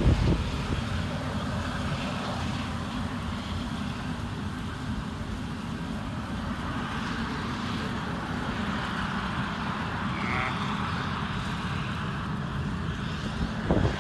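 Farm machinery engine running steadily with a low, even rumble. A brief higher-pitched sound comes about ten seconds in.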